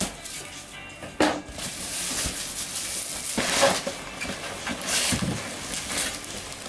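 Packing tape cut and torn off a cardboard box, with a sharp rip about a second in. Then the cardboard flaps open and plastic wrap and bubble wrap rustle and crinkle as they are lifted out.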